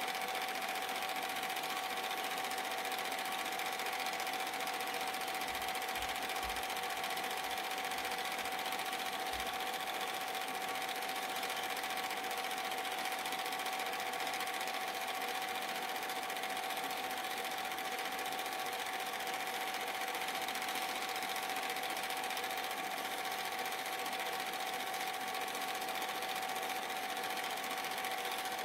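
Super 8 film projector running: a steady mechanical whir with a constant hum, unchanging throughout.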